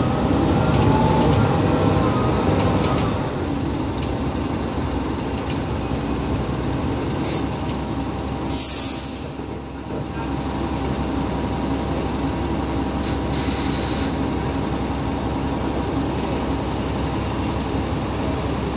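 Upper-deck cabin noise of a New World First Bus double-decker (fleet no. 6017) on the move: a steady rumble of engine and road. A short loud hiss comes a little after eight seconds in, and the rumble drops briefly just after it.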